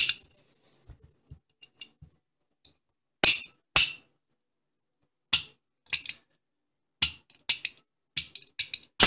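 Sharp metallic clicks and clinks, about a dozen at irregular intervals, from the parts of an AR-15 lower receiver (Smith & Wesson M&P15) being handled and worked by hand during reassembly.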